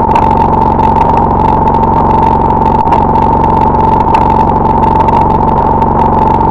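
Loud, steady, distorted electronic drone: one held high tone over a dense buzzing low end, unchanging throughout.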